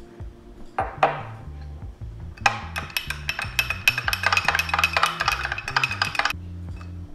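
A metal spoon stirring briskly in a small drinking glass, mixing sauce and water, with rapid clinks against the glass for about four seconds. Before the stirring, about a second in, water is splashed in briefly. Background music plays underneath.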